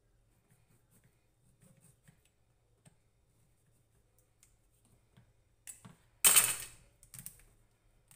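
Faint small clicks and taps of kitchen handling, then about six seconds in a loud, short scratchy crackle that fades over half a second, and a smaller one a second later, as the plastic cap of a fish sauce bottle is twisted open.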